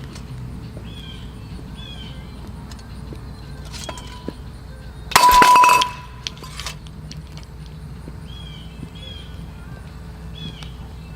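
Crock pot crashing onto the ground after being flung into the air: one loud clattering crash about halfway through, lasting under a second, with a ringing tone trailing off after it.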